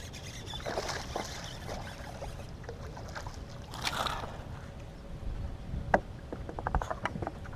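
Fishing-boat ambience on open water: steady low wind and water noise with a faint steady hum. A short rush of noise comes about four seconds in, a sharp knock near six seconds, and then a quick run of small clicks.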